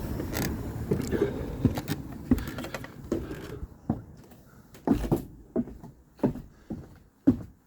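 Footsteps going down stairs at a steady walking pace, a thud about every half second or so, heard clearly from a few seconds in, after a stretch of steady background noise.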